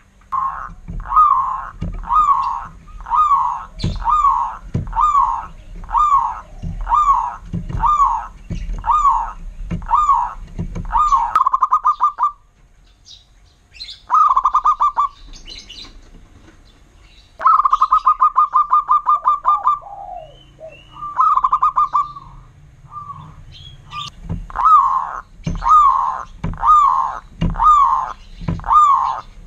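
Zebra dove (perkutut) cooing: a long series of short coo notes about one a second, broken in the middle by a pause and two rapid rattling runs of notes, then the steady series again near the end.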